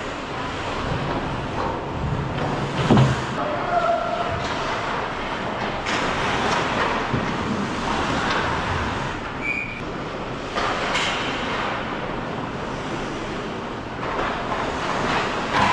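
Ice hockey play heard from the goal: a steady scraping hiss of skates on the ice with several sharp knocks of sticks and puck.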